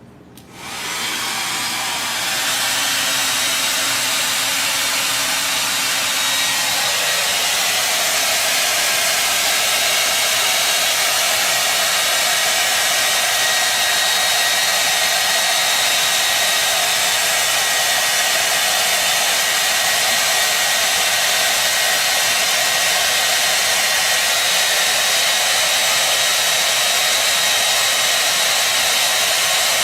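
Handheld hair dryer switched on about half a second in, rising to full speed within a couple of seconds, then running steadily: a loud, even rush of air with a faint high motor whine.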